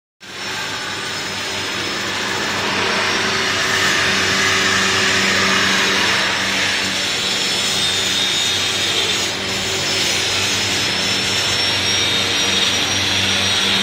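Steady din of machinery and power tools in a stainless-steel gate fabrication workshop, with a thin high whine and a low hum running through it.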